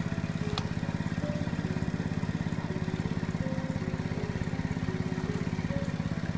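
A small engine running steadily at an even, fast pulse, with short scattered tones above it.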